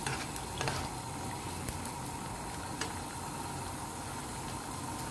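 Tomato-and-fish soup simmering in a frying pan: a steady bubbling hiss, with a few light spoon clicks in the first second.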